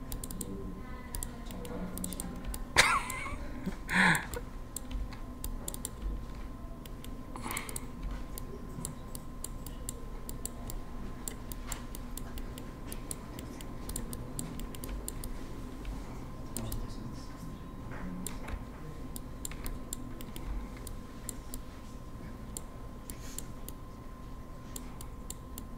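Scattered quiet computer mouse and keyboard clicks: the Alt key held while left-clicking and dragging to copy shapes. Two louder short sounds stand out about three and four seconds in.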